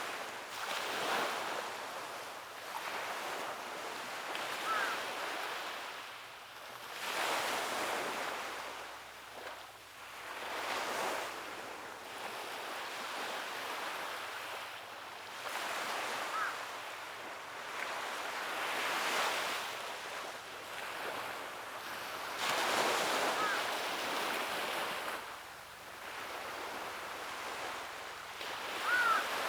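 Sea waves breaking on a shore and washing back, the surf swelling and easing every few seconds.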